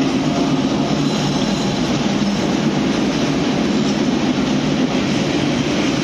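Diesel locomotive passing close by, its engine running, then the steady noise of passenger coaches rolling past on the rails.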